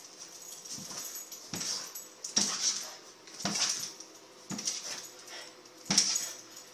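French bulldog excitedly going after a laser dot on a kitchen cabinet, making short dog noises and thumps about once a second.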